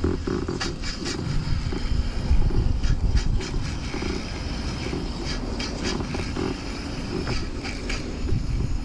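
Low, fluctuating rumble of wind on the microphone, with scattered light clicks and knocks from handling gear in a kayak.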